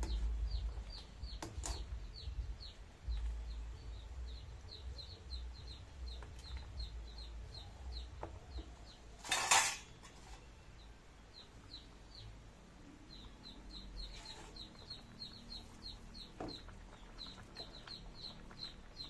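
Birds peeping in a rapid run of short, high, falling chirps, several a second, with a few pauses. About nine seconds in comes a brief noisy scrape or clatter, the loudest sound, along with a few faint knocks.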